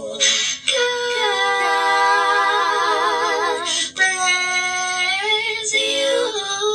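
Multi-tracked a cappella female vocal harmony: one woman's voice layered in several parts, holding long chords with vibrato. Short breaths or 's' sounds come before each new phrase, about half a second and four seconds in.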